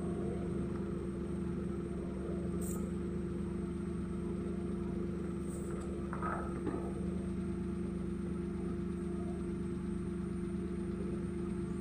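Steady low hum of an idling engine, even in level throughout. It has two faint clicks and a short higher-pitched sound about halfway through.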